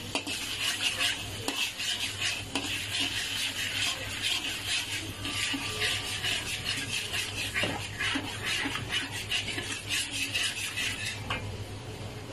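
Metal fork scraping and stirring thick chili-tomato sauce around a metal wok in a fast, continuous run of scrapes that eases off near the end.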